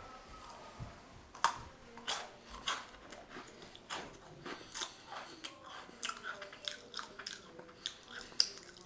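A person chewing and biting a crunchy Girl Scout cookie: soft, irregular crunches and clicks.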